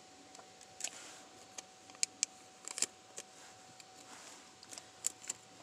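Scattered light clicks and taps from a smartphone being handled in the hand, irregular, the loudest around two to three seconds in, over a faint steady hum.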